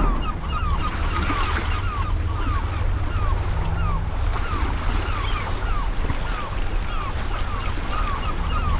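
Wind buffeting the microphone, a steady low rumble, with short falling chirps repeating a few times a second over it.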